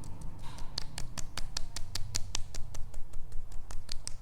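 Fingertips lightly and quickly patting the face and jaw in a steady run of soft taps, about five or six a second, as a self-massage to loosen a clenched jaw.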